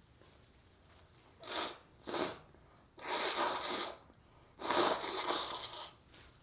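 A person sneezing: two short, sharp breathy sounds, then two longer noisy sneezes.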